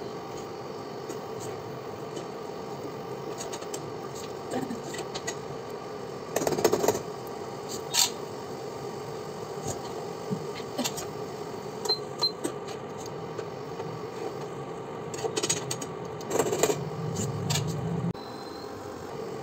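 Kitchen utensils and cookware clinking and clattering against each other over a steady hum, with a few louder bursts of clatter about a third of the way in and again near the end.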